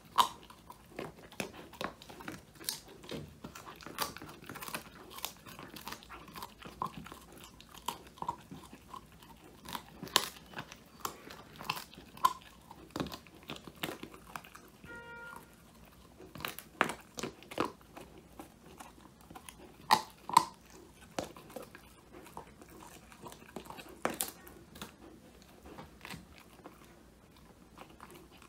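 Old English Sheepdog puppy crunching and chewing a whole quail treat, its bones cracking in irregular crunches, with a couple of louder cracks about two-thirds of the way through.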